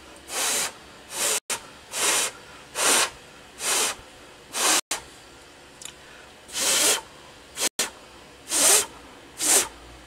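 Short puffs of breath blown on a hot hard drive circuit board to cool it: about eleven hissing blows, roughly one a second.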